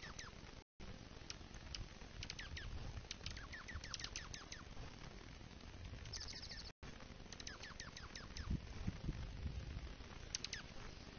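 Dark-eyed juncos calling to each other at a seed feeder: clusters of quick, high, thin twittering notes that slide downward, with a short rapid high trill about six seconds in. A few soft knocks from the birds on the feeder come about eight to nine seconds in.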